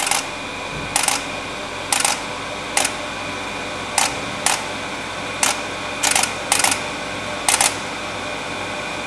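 Pro-Cut on-car brake lathe clicking in calibration mode as it aligns itself to the hub: sharp clicks about once a second, some in quick pairs, over a steady machine hum. The clicking stops near the end, the sign that calibration is finished.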